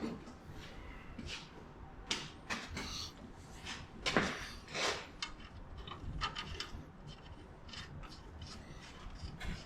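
Scattered light clicks, knocks and rubbing of hand tools and parts being handled, a dozen or so separate short strokes at uneven intervals.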